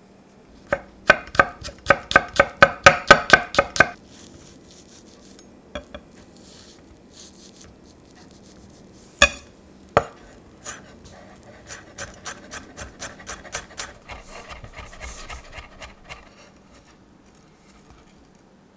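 Chef's knife chopping garlic cloves on a wooden cutting board. A fast run of chops comes first, then a few single knocks, then a second, lighter run of chops.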